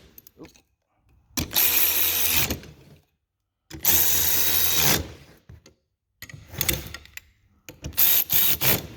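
Cordless power tool running in bursts to drive in the 10mm ignition coil bolts: two steady runs of about a second each, then several shorter quick bursts near the end.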